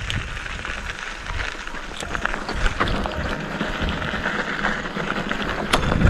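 Wind buffeting the microphone while a bicycle rides over a rough dirt track, a gusty rumble with a few sharp clicks and rattles from the bike, the loudest near the end.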